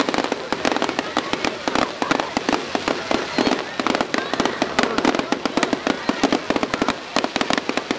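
Fireworks going off in a dense, rapid run of crackling pops and bangs, many a second, without a break.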